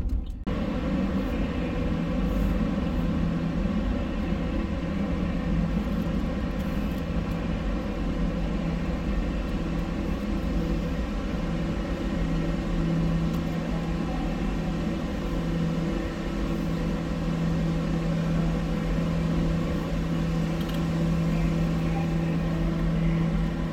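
Steady low hum and rumble of machinery on a ferry's enclosed car deck, with a low droning tone that grows stronger about halfway through.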